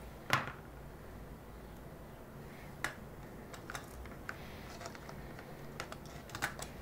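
Scattered small clicks and taps of fingers handling thin wires and the plastic case of an opened pocket radio. The sharpest click, with a brief rustle, comes about a third of a second in; a second one comes near the middle, then a run of light ticks.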